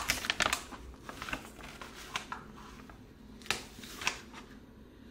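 Light kitchen handling sounds: a quick run of small clicks and rustles in the first second, then a few isolated taps. They come from food containers and utensils being handled while oats and protein powder are measured into a bowl.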